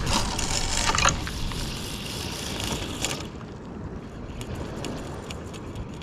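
A cast with a heavy bottom-fishing rod: a whoosh, then line hissing off the spinning reel for about three seconds that stops abruptly as the rig lands. A few light clicks follow.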